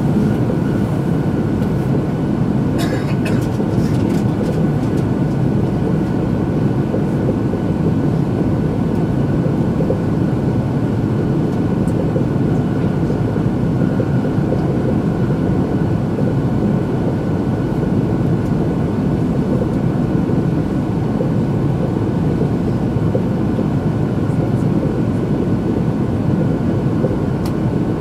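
Steady running noise inside the cabin of an E2-series Shinkansen travelling at speed: a low, even rumble with a faint steady high tone over it, and a few brief clicks about three seconds in.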